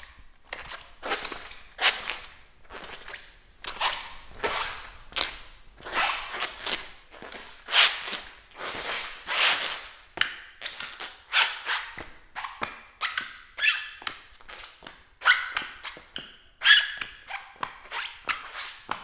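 Rubber-soled shoes squeaking and squealing with each step as someone walks, about one to two steps a second. The later steps give sharper, more pitched squeals.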